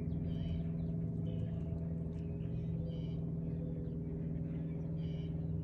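A steady low engine-like hum runs throughout, with short high bird chirps coming every second or so over it.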